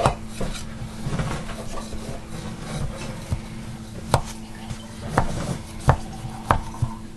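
A knife scraping around the metal centre tube of a tube pan, loosening a freshly baked fruitcake from it. In the second half, the blade knocks against the metal with several sharp clicks.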